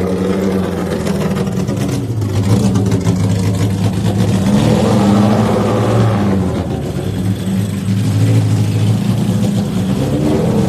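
Datsun 1200 pickup's swapped-in Toyota Corolla four-cylinder engine revving hard, its pitch climbing and dropping several times, as the rear tyres spin in a smoky burnout.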